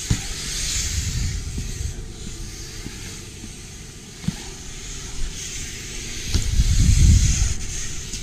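BMX bike tyres rolling over concrete skatepark ramps, a rolling hiss and rumble that swells and fades as the rider passes. Sharp knocks come just after the start and about four seconds in, and the loudest rumble comes near the end as the bike rolls close by.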